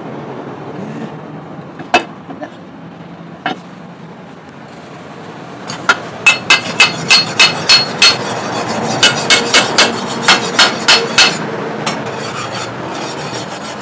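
Hammer striking steel with a metallic ring: two single blows, then a fast run of about twenty blows at roughly three to four a second, over a steady background noise.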